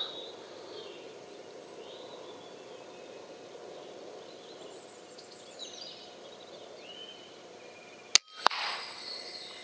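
Faint steady outdoor background noise with a few faint chirps. A little over eight seconds in come two sharp clicks close together.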